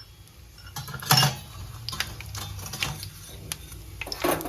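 Cumin seeds crackling in hot oil in a kadai, a scatter of sharp ticks over a faint sizzle. A couple of louder metal knocks from the utensils come about a second in and near the end.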